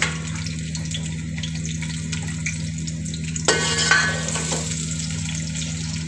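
Chopped onions sizzling in hot oil in an aluminium pot. From about three and a half seconds in, a steel ladle scrapes the pot as it stirs them.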